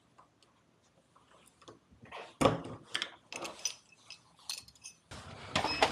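Small metallic clicks and clinks of locksmith tools working a door lock. After a quiet start, irregular sharp clicks, the loudest about two and a half seconds in, with a busier run of them near the end.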